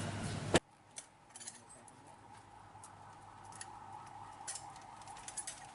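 Light metallic clicks and ticks of small metal parts and tools being handled. A sharp click comes about half a second in, then scattered faint taps follow.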